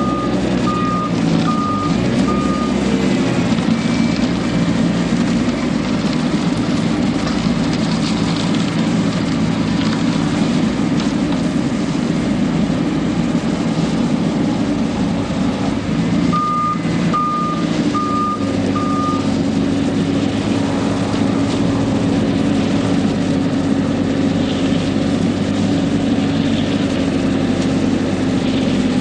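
Self-loading concrete mixer truck's engine running steadily, with its reversing alarm beeping in short runs: a few beeps at the start and four more a little past halfway. Soon after the second run the engine note rises and holds higher.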